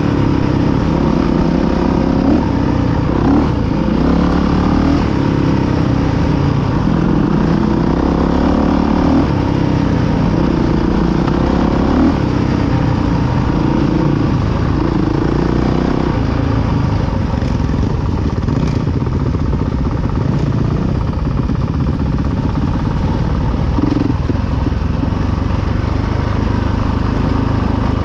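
Dirt bike engine running under the rider, revving up and down in steps through the first half, then running more steadily.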